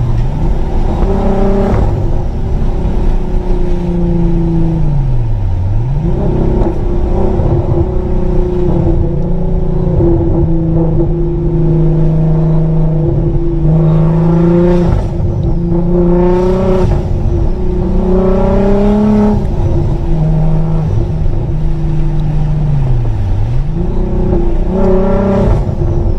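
Volkswagen Golf Mk4 R32's VR6 engine heard from inside the cabin while driving. It holds steady revs for long stretches, its pitch falls and climbs back three times, and it pulls harder with rising pitch at a few points.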